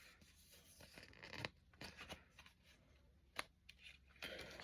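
Faint rustling and a few light clicks of packaging and merchandise being handled, a handful of separate small sounds with quiet between them.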